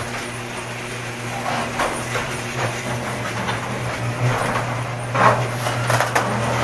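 Blizzard wind blowing in gusts across the microphone, over a steady low hum.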